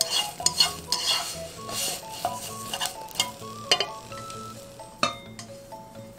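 Wooden chopsticks stirring green beans in a dry, oil-free wok, with a run of clicks and scrapes against the pan and a light sizzle as the beans char. The clicks thin out after about two seconds, with one sharp knock about five seconds in. Soft background music plays underneath.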